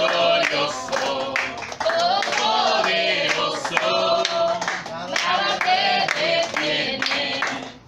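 A congregation singing a worship song together, clapping their hands along in rhythm. The sound drops away just before the end.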